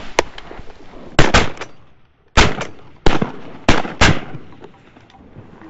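Duck hunters' shotguns firing a quick volley at a flock of ducks: about five sharp blasts over three seconds, then another right at the end.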